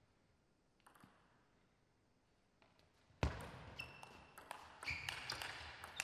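Table tennis ball and paddles in play: a few faint clicks, then a loud sharp knock about three seconds in starts a rally of quick ball clicks on paddles and table, with a few short squeaks from the players' shoes on the floor.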